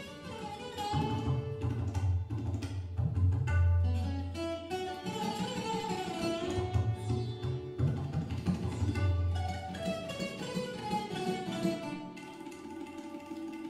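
Live raga fusion music in raga Yaman: a chaturangui slide guitar plays gliding melodic lines over tabla strokes and electric guitar. Deep bass notes sound for most of the first ten seconds, then drop away.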